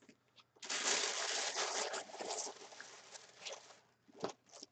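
Rustling and crinkling of packaging being handled: a dense rustle for about two seconds, then scattered crinkles and taps.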